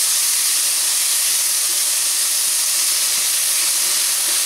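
Sliced onion, tomato and jalapeño sizzling steadily in hot oil in a stainless steel pan, with a few light scrapes as they are stirred with a silicone spatula.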